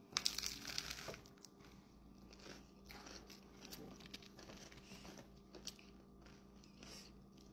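A bite into crisp toasted bread, with a loud crunch in the first second, followed by quieter chewing and small crunches.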